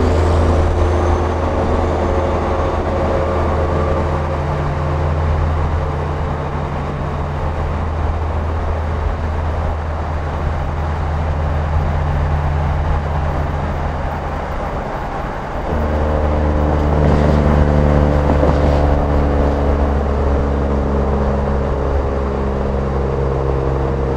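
Detroit Series 60 inline-six diesel of a Peterbilt 389 glider running at highway speed, its exhaust note coming out through 8-inch chrome stacks. About fifteen seconds in it briefly eases off, then pulls again louder.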